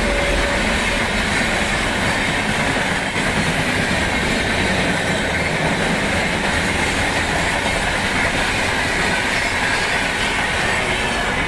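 Passenger express train running past, a loud, steady rush of wheels on the rails, with a high metallic ringing band above the rumble.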